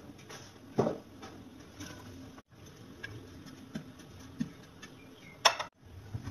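Scattered light clicks and knocks of a metal skimmer against the cooking pot. Two sharper knocks stand out, one about a second in and the loudest near the end, and the sound breaks off twice at edit cuts.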